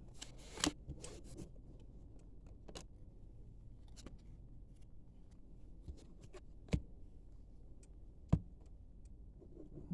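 Trading cards and packs being handled: scattered soft clicks and taps as cards are set down and the next pack is picked up, with sharper taps about two-thirds of a second in and again near 7 and 8½ seconds.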